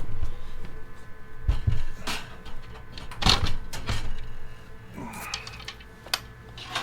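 A computer case's front panel being pried off: a string of irregular plastic clicks and knocks, with two low thumps a little over a second and a half in and a short scrape about five seconds in.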